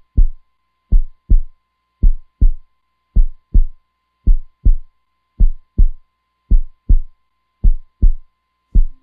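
Slow heartbeat sound effect: pairs of low thumps, lub-dub, about one pair a second, over a faint steady high tone.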